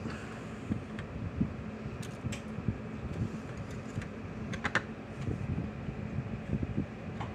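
Small clicks and handling noises of insulated wires being held and positioned for soldering, over a steady low hum; the sharpest clicks come about two seconds in and in a cluster about two-thirds through.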